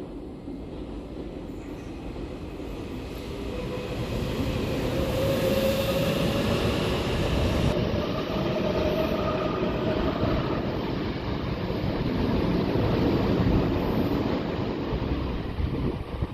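Tobu Skytree Line electric train passing through a station without stopping, at low speed. The sound of the wheels and motors builds over a few seconds, stays loud for about ten seconds, then dies away near the end.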